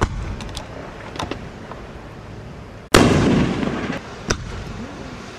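A 9-shot, 3-inch-shell fireworks cake firing: several sharp reports, the loudest about three seconds in, followed by about a second of dense rushing noise, then another sharp report.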